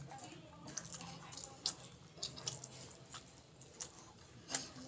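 Close-miked chewing of food: irregular wet clicks and smacking pops, a few each second, the loudest about four and a half seconds in.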